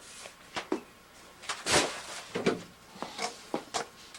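Furnace duct pipe being handled and shifted: a series of irregular knocks and short scrapes, the loudest a scraping rattle a little under two seconds in.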